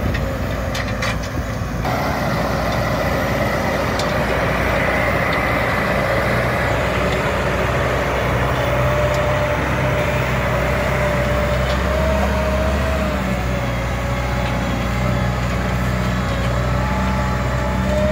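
Massey Ferguson 7316 tractor's diesel engine working under load as it pulls a subsoiler 20 to 25 cm deep. It makes a steady drone with a whine that wavers slightly in pitch, growing louder about two seconds in.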